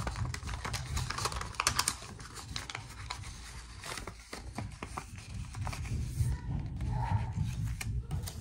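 Paper money and envelopes being handled: irregular rustling and crinkling with quick small taps and clicks.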